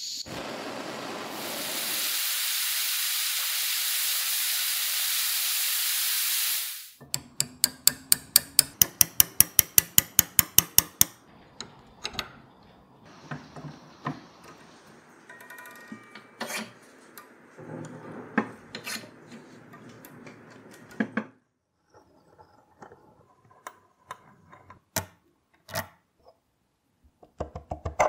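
Canister gas torch lit and burning with a steady loud hiss for about five seconds, cut off abruptly. Then a quick run of sharp, evenly spaced clicks, about six a second for four seconds, followed by scattered light metal clicks and knocks.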